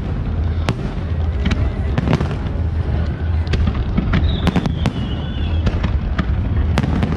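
Fireworks display: a rapid irregular series of sharp bangs and crackles from bursting aerial shells over a steady low rumble. A brief high whistle rings out about four seconds in.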